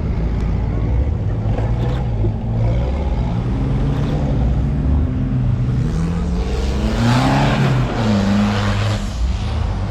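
Off-road 4x4 engine revving, its pitch rising and falling several times and climbing highest about seven seconds in before dropping back. A rush of noise comes with the peak.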